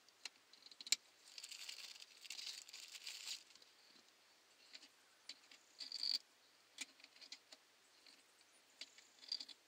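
Metal radio removal keys clinking and scraping as they are handled and worked into the release slots of the car's head unit, with one sharp click about a second in and a stretch of rustling scrapes soon after, then scattered small ticks.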